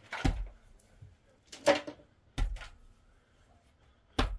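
Four sharp knocks at uneven intervals, wood-like impacts of repair work.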